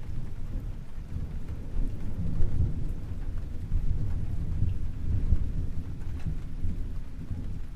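Thunder rumbling low and long over steady rain, swelling about two seconds in and again around five seconds, then easing off.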